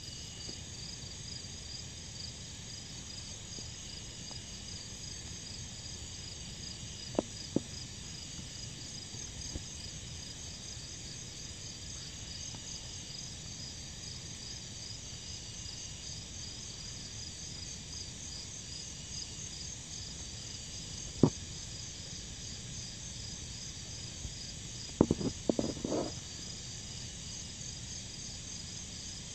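Steady night chorus of insects, a high pulsing trill that never lets up. A few short sharp knocks cut through it: two about seven seconds in, a single loud one past the middle, and a short cluster near the end.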